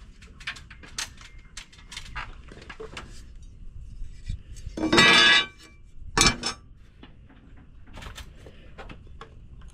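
Scattered light metallic clinks and knocks from tools and boards being handled on the roof framing. A louder scraping rush comes about five seconds in, followed by a sharp knock.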